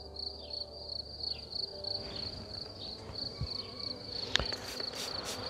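A cricket chirping in a steady string of short, high pulses, over the low buzz of honeybees from an open hive. A single sharp click comes about four seconds in.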